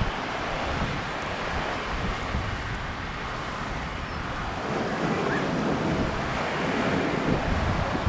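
Pacific surf washing up a sand beach among rocks: a steady rushing wash of foam that builds again about halfway through as the next wave runs in.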